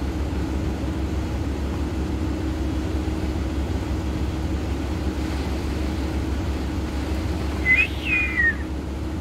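Heavy logging machine's diesel engine idling steadily, heard from inside its cab. Near the end comes one short high chirp that rises and then falls.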